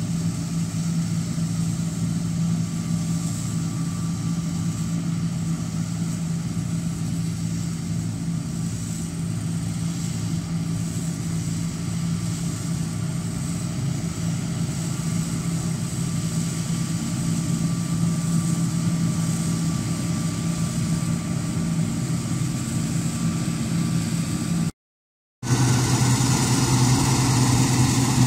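Combine harvester engine running steadily under harvest load, a constant hum with a faint steady whine above it. About 25 s in there is a brief cut to silence, then another machine's steady, lower-pitched engine hum.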